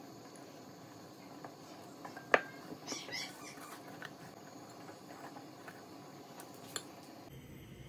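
Metal fork scraping roasted spaghetti squash strands out of the shell into a glass bowl: soft scraping and rustling as the strands fall, with a sharp clink of the fork on the glass a little past two seconds in and a lighter one near the end.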